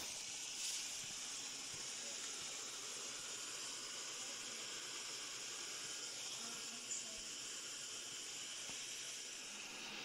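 Xiaomi Mi Robot Vacuum-Mop 2 Pro running as it cleans a wooden floor: a steady, fairly faint hiss, with a brief click about seven seconds in.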